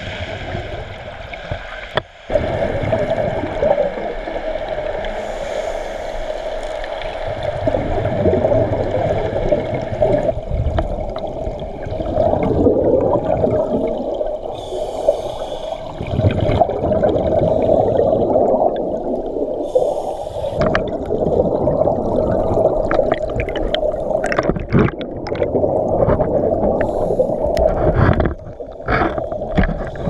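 Turbulent waterfall water churning and gurgling, heard underwater through the camera's housing. It swells and eases every few seconds, with a few sharp knocks near the end.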